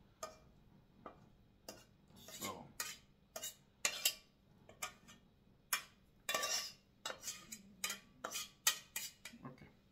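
Cooking utensil scraping and tapping against a frying pan as fried egg is scraped out onto a plate, in many short, irregular strokes.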